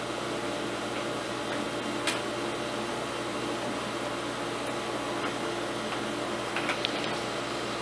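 Steady hiss and hum of background noise, with a few faint clicks of a screwdriver and the plastic heater housing being handled, once about two seconds in and a few more near the end.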